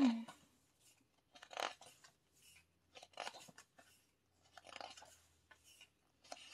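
Paper rustling and crinkling as the pages of an album photo book are turned and handled, in several short bursts about a second and a half apart, with a brief louder knock right at the start.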